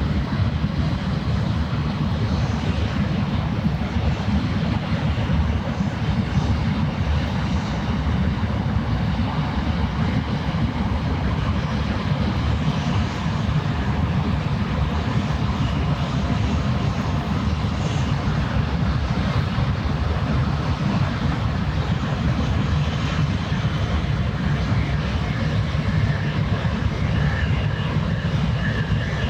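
Steady low drone of a passing ship's engine, with water and outdoor noise over it.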